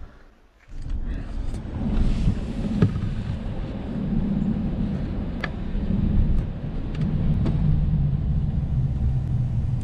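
Road and engine noise inside a moving car's cabin: a steady low rumble that starts about a second in, with a few light clicks.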